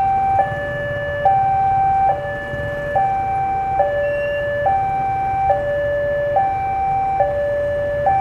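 Railway level-crossing warning alarm sounding: a two-tone electronic signal alternating high and low, each tone held a little under a second, repeating steadily over a low rumble. It signals that the crossing is closed for an approaching train.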